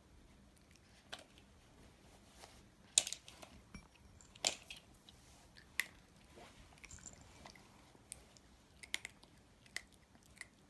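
Chihuahua puppy chewing small pieces of dry food, a string of irregular sharp crunches with the loudest about three seconds in.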